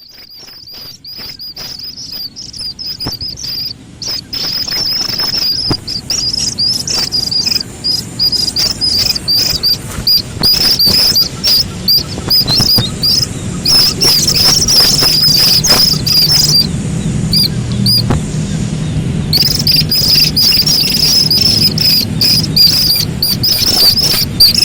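Slaty-legged crake chicks calling: rapid, continuous high-pitched peeps that fade in over the first few seconds and pause for about three seconds past the middle.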